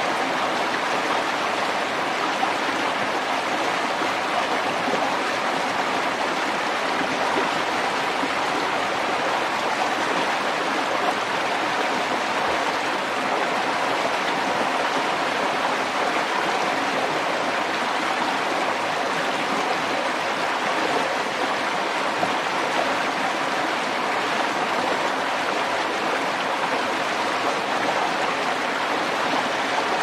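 Fast-flowing spring-fed water rushing and splashing, churning into white foam; a steady, unbroken rush.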